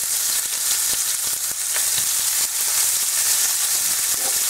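Raw ground-beef patties frying in hot oil in a pan: a steady high sizzle with scattered small crackles.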